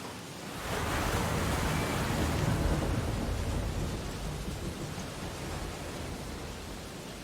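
Ocean surf on a beach: a wave breaks less than a second in with a deep rumble and hiss, then the wash slowly dies down.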